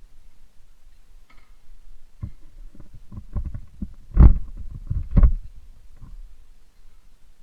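Honda CB150R single-cylinder engine through a Ronin aftermarket exhaust: a low rumble at idle, then a run of short throttle blips, the two loudest about four and five seconds in.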